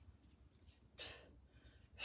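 Sharp, forceful breaths through the mouth during kettlebell snatches, a short one about a second in and another at the end.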